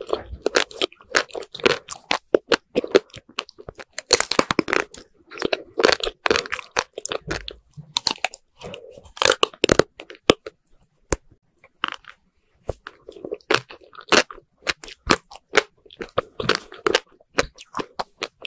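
Close-miked crunching and chewing of a coated ice cream bar: crisp cracks of the hard coating and wet mouth sounds come in clusters, with a sparser lull about eleven seconds in.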